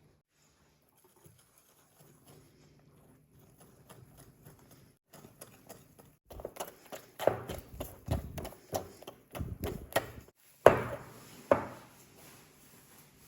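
Kitchen utensils knocking and clattering against a bowl or worktop while the mochi dough is being made: quiet at first, then an irregular run of knocks, with two louder knocks near the end.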